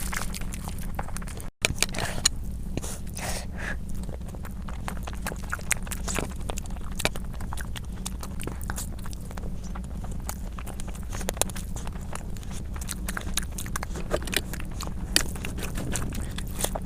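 Close-miked eating sounds: chewing and mouth noises as a dense, irregular run of wet clicks and crackles over a steady low hum. The sound drops out for an instant about one and a half seconds in.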